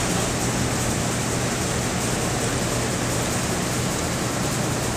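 Cutaway Knight sleeve-valve engine turning over: a steady whirring hiss from its moving sleeve linkages over a low, even hum.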